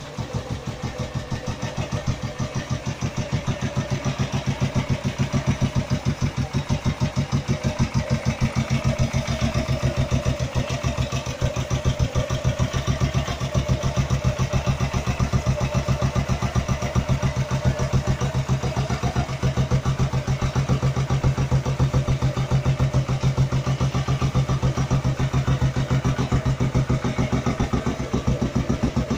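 A 1947 Velocette KSS Mk2's 350cc single-cylinder overhead-cam engine idling steadily with an even firing beat.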